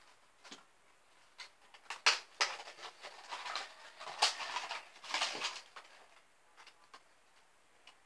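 A boy's stifled laughter: a string of short breathy bursts of giggling between about one and six seconds in, then quiet.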